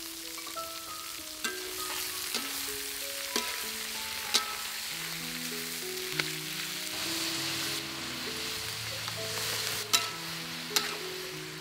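Stir-fry sizzling in oil in a steel wok, with a metal spatula scraping and striking the wok about seven times. Soft background music plays slow single notes underneath.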